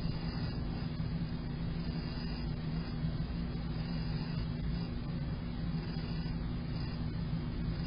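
Steady low rumbling noise with a constant low hum underneath, even throughout, with no distinct events.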